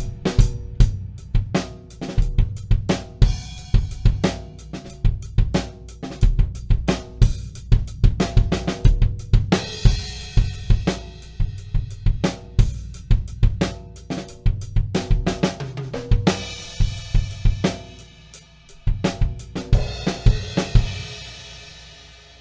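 Close-miked Tama Superstar HyperDrive drum kit played continuously: kick, snare, hi-hats and Sabian AAX cymbals, with cymbal crashes ringing out and fading near the end.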